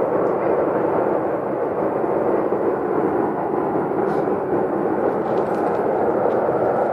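A loud, steady rumbling noise with no clear pitch that goes on without a break: a mysterious noise in the sky, which the person recording finds really loud and long-lasting.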